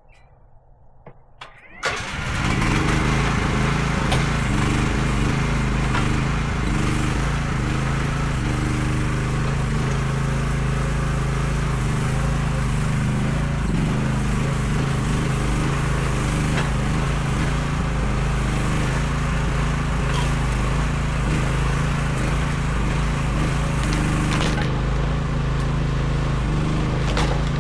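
Mini excavator engine: quiet at first, then it comes in abruptly about two seconds in and runs steadily.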